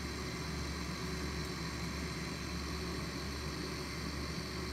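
Steady low mechanical hum with no distinct events.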